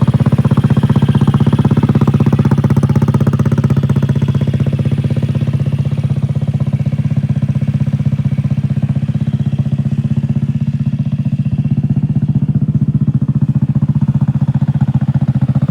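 Honda Click scooter's single-cylinder four-stroke engine idling steadily, its exhaust giving an even, rapid low pulse.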